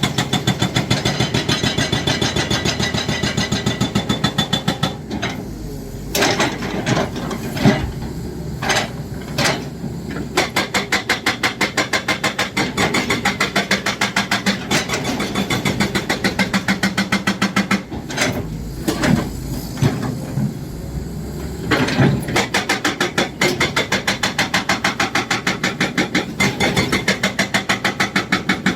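Excavator-mounted hydraulic breaker hammering in a fast, even rhythm over the diesel engine. It stops twice for a few seconds, leaving the engine running and a few separate heavy knocks.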